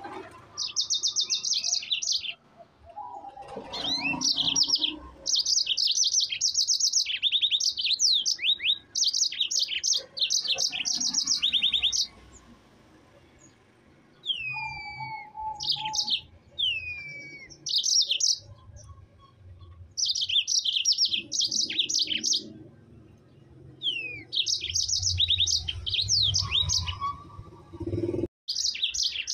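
Yellow-fronted canary (mozambik) singing a long rolling song: bursts of very fast trills broken by short gaps, with a brief lull about twelve seconds in followed by several downward-sliding whistles.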